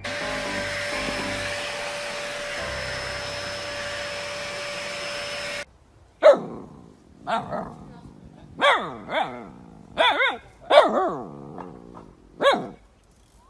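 A steady machine hiss with a fixed whine, like an appliance motor, cuts off suddenly about halfway through. Then a husky gives a string of about seven short, wavering yowls and barks, its pitch bending up and down within each call.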